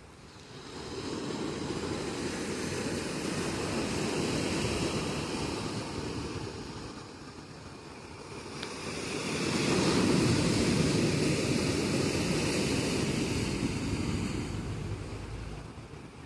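Sea waves breaking on a beach and washing up the shore, two surges one after the other, the second louder.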